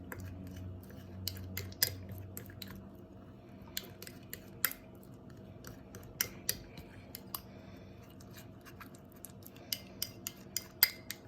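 A utensil stirring slime in a bowl, clicking and tapping against the bowl at irregular moments, over a faint steady hum.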